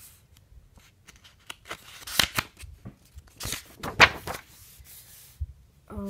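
Sketchbook pages being turned and handled: paper rustling and flapping in a few short bursts, the loudest about four seconds in.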